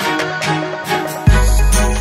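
Electronic background music: a steady beat over held synth notes, with a deep bass hit about a second in.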